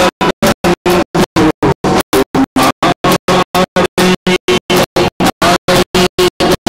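Music for a Gujarati folk dance, cut by regular dropouts to silence about five times a second, so it stutters rapidly.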